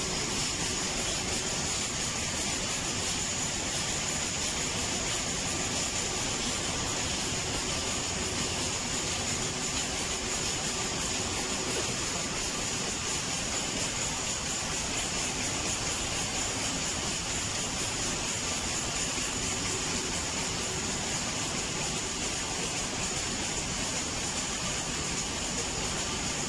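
Multi-colour printing press for shrink film running: a steady mechanical whirr with a constant high-pitched whine.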